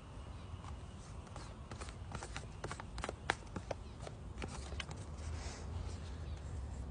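A quick run of small clicks and taps with some light rustling: a spoon working against a plastic MRE pouch and its packaging while the food is eaten. The clicks are densest in the middle, with one sharper tap about three seconds in.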